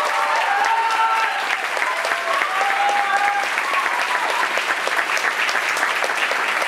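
Audience applauding steadily, with a few voices calling out over the clapping in the first half.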